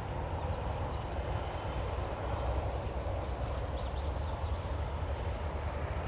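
Steady wind buffeting the microphone, a low rumbling rush, with a few faint, high bird chirps in the first half.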